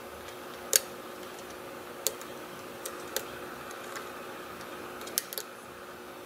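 Small metallic clicks of a lock pick working the pins of a Defiant pin-tumbler lock core, which has serrated pins: about six sharp ticks at irregular intervals.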